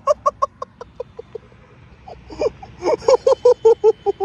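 High-pitched laughter in quick rhythmic bursts, about six or seven a second. It trails off in the first second and a half and breaks out again about three seconds in.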